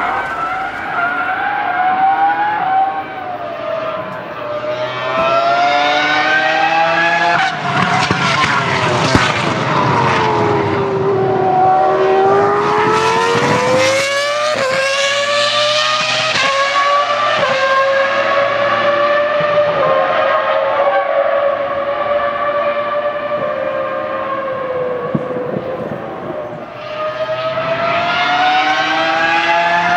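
Ferrari F2005 Formula 1 car's 3.0-litre V10 screaming at high revs around a circuit. Its pitch repeatedly climbs through the gears and sweeps down on downshifts, loudest as the car passes close about halfway through.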